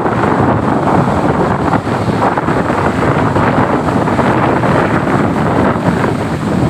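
Strong wind buffeting the microphone over the steady rush of heavy surf.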